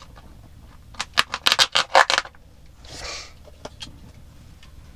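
Plastic snack wrapper being torn open and crinkled by hand: a quick run of sharp crackles about a second in, then a softer rustle.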